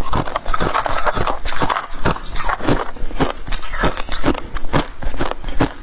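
Freezer frost being bitten and chewed in the mouth: a steady run of crunches, roughly two a second.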